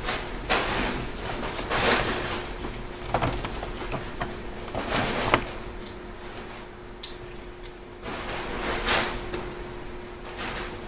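Kittens scampering and scrabbling over plastic-backed puppy pads in a wire crate, making rustling and scratching scuffs in bursts. A steady faint hum runs underneath.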